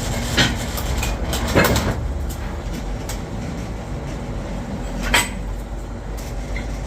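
Three sharp metal knocks over a steady low mechanical rumble, the last one ringing briefly.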